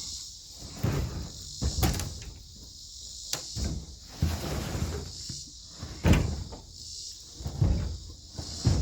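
Irregular dull thumps and knocks of cedar logs being handled and loaded, about eight in all, over a steady chorus of crickets.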